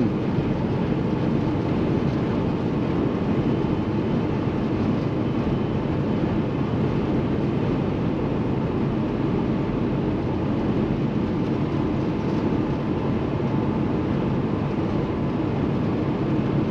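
Steady in-cab drone of a 2016 Kenworth T680 semi truck cruising at highway speed: the PACCAR MX-13 diesel running under road and wind noise.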